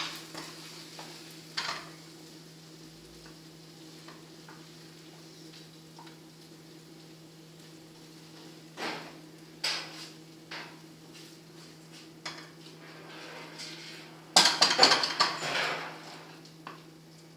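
Wooden spoon scraping and knocking in a frying pan of rice and against a glass bowl as rice is spooned into it. The sounds come as scattered sharp knocks, with a louder burst of scraping and clatter near the end, over a steady low hum.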